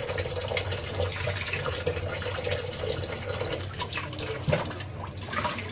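Water running from a kitchen tap into a plastic basin standing in the sink, filling it. A hand dips into the water, and there is a brief knock about four and a half seconds in.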